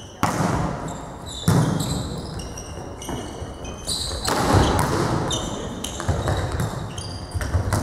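A volleyball served and then struck several times during a rally, each hit a sharp slap that rings out in a large gym, with short high squeaks of shoes on the court floor between the hits.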